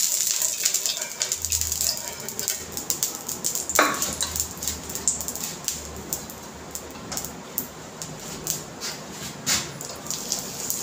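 Cooking oil sizzling and crackling on a hot tawa as it is spread with a spoon; the sizzle is strongest at first and slowly dies down. A short rising squeal cuts in about four seconds in.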